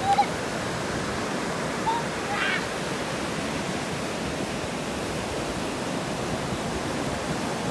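Ocean surf breaking and washing up a sandy beach: a steady, even rush of waves. A brief faint voice calls out about two and a half seconds in.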